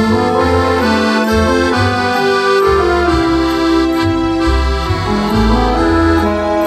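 Accordion playing a tune: held melody notes that change about every half second, over a steady bass line.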